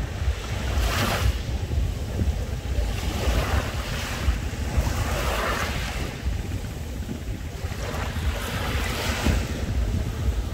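Small sea waves washing onto a beach, a swelling wash every two to three seconds, four in all. Wind buffets the microphone throughout as a steady low rumble.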